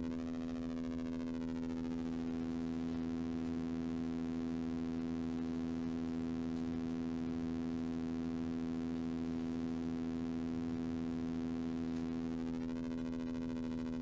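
Moog Model 15 synthesizer app's oscillator sustaining a steady rectangular-wave drone. Its tone colour sweeps as the pulse width is turned, just at the start and again near the end.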